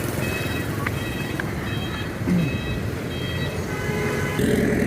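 Steady street traffic hum with faint music playing, and a vehicle getting slightly louder near the end.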